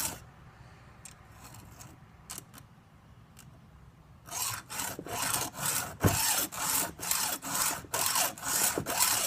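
Hand file rasping across the cutting teeth of a chainsaw chain in quick, even strokes, about two a second, sharpening the cutters. The strokes begin about four seconds in, after a quieter pause with a few light clicks.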